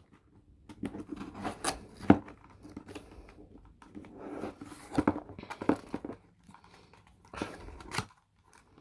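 Scissors cutting through toy packaging to free the instructions: irregular sharp snips with crinkling plastic and paper in between.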